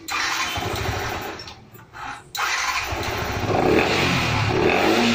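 Yamaha R15 V2's single-cylinder engine being started with a pink K&N-type cone air filter in an open airbox: a first try that dies away after about a second and a half, then it fires about two and a half seconds in and keeps running, louder from about three and a half seconds on.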